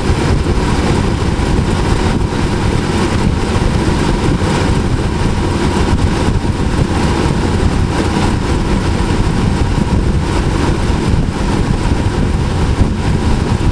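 2006 Dodge Ram 1500 pickup's engine running steadily at idle.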